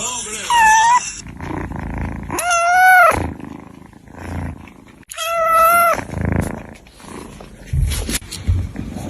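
A cat meowing twice, two long drawn-out meows of about a second each, the second starting around two seconds after the first ends.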